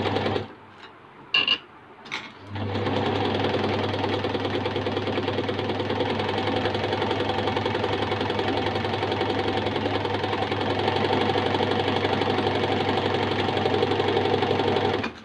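Usha Queen Stitch sewing machine stitching a picot hem along a fabric edge, its motor humming under a fast, even needle rhythm. A brief run and a click come in the first two seconds, then the machine runs steadily for about twelve seconds and stops at the very end.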